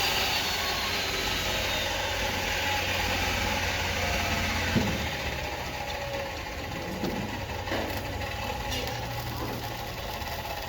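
Excavator engine running steadily with mechanical clicking and rattling, and a sharper knock about five seconds in.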